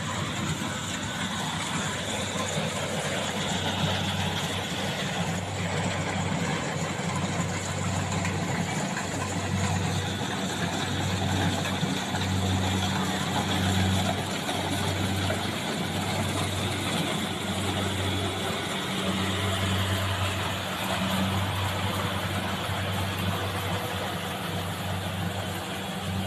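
Engine of a rice reaper harvesting machine running steadily in the field, its low hum swelling and fading about once a second over a steady mechanical noise.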